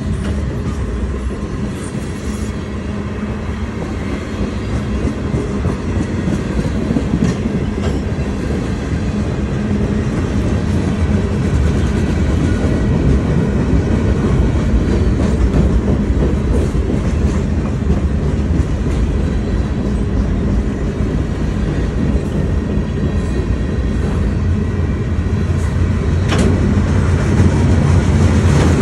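A CSX manifest freight train's cars rolling past, with a steady rumble and wheels clicking over the rail joints. A sharper clank comes near the end.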